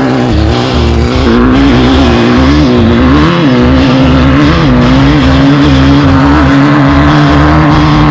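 Off-road race car engine running hard, its pitch rising and falling with the throttle and then holding fairly steady about halfway through, over irregular low buffeting.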